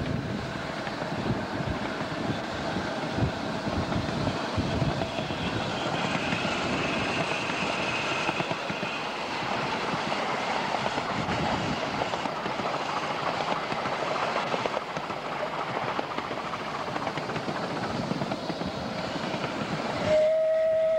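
Ride-on miniature railway train running along the track, its wheels clattering over the rails. About a second before the end, a steady high tone begins.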